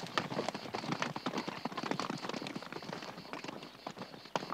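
Hoofbeats of several horses moving fast over dry ground, a dense, irregular clatter that grows fainter near the end as they ride away.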